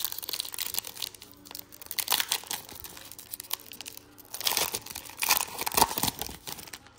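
Foil trading-card pack wrapper crinkling and tearing as it is pulled open by hand, in uneven bursts of crackling, loudest about two seconds in and again in the last few seconds.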